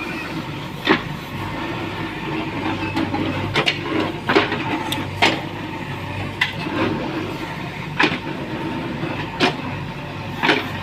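JCB 3DX backhoe loader's diesel engine running steadily, with sharp knocks at uneven intervals, about nine in all.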